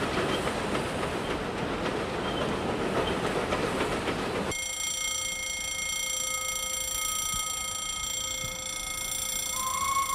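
A metre-gauge Mallet steam locomotive and its coaches running past, wheels clicking over the rail joints. About halfway through, the sound cuts abruptly to a level-crossing warning ringing steadily. Near the end the locomotive's steam whistle starts, sliding up in pitch.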